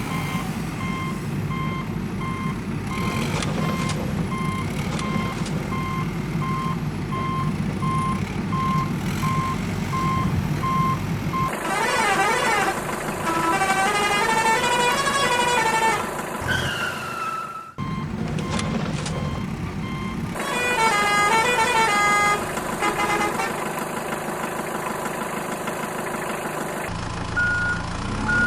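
A vehicle reversing alarm beeping steadily at about two beeps a second over a low truck or backhoe engine rumble. About halfway through, short melodic jingles of quick rising-and-falling notes take over twice, and a single beep tone returns near the end.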